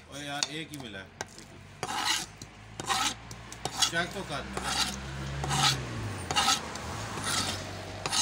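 Large knife blade scraping in a series of short strokes, roughly one a second, starting about two seconds in.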